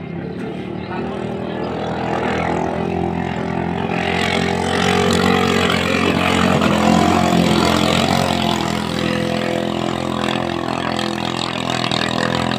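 Small engine of a ketinting racing boat running flat out as the boat speeds across the water. It gets louder over the first half and stays loud.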